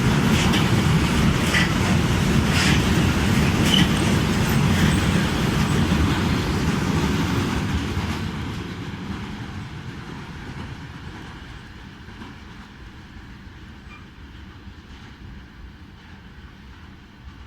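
A train passing through the station: a loud rumble with scattered wheel clicks for about eight seconds, then fading steadily as it moves away.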